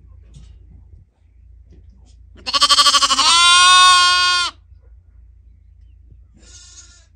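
A goat bleating once, loudly, for about two seconds. The call quavers at the start, then settles into a steady held note. A fainter, shorter call follows near the end.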